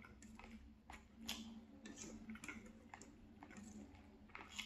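Faint close-miked chewing: irregular soft clicks and smacks of a mouth eating food, about a dozen over the few seconds.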